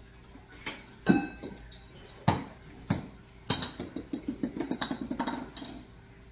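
Objects being handled: a handful of sharp knocks and clicks, a couple with a short glassy ring, then a quick rattling run of small clicks for about two seconds.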